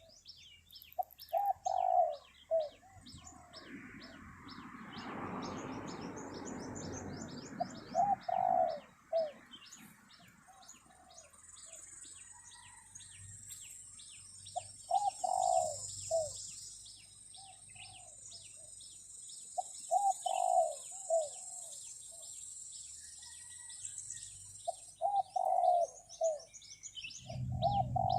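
Doves cooing in short phrases of two or three low notes, repeated every few seconds. Rapid high chirping from small birds runs behind them. Near the end there is a brief low rumble of handling noise.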